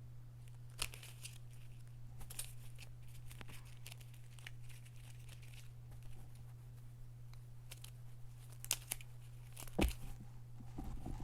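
Intermittent rustling and crinkling handling noises with a few sharper clicks, over a steady low hum.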